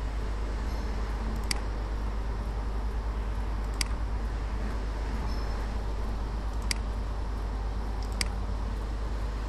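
Steady low hum and hiss of a recording microphone, with four sharp computer-mouse clicks spaced a couple of seconds apart.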